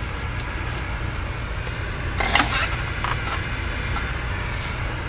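Steady low hum throughout, with a brief rustling scrape about two seconds in and a faint click a second later, like handling noise as the camera is moved.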